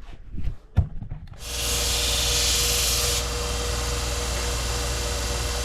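A few knocks and a click. Then, about a second and a half in, a Bucktool 2x42 benchtop belt grinder starts and runs with a steady hum and hiss. For about two seconds the hiss is louder, as steel is ground on the belt, and then it runs on steadily.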